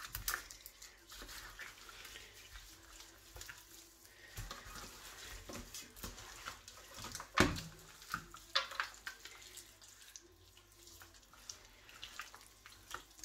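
Hands mixing lamb shanks into an oily spice marinade with cut vegetables in a metal roasting tray: faint, irregular wet squelching and rustling, with a sharper knock about seven seconds in.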